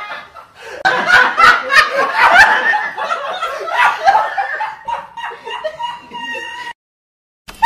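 Several men laughing hard together in loud, overlapping bursts of laughter that cut off abruptly near the end.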